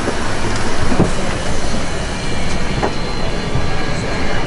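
Steady rush of airliner cabin noise during boarding, with a few faint knocks from passengers moving about.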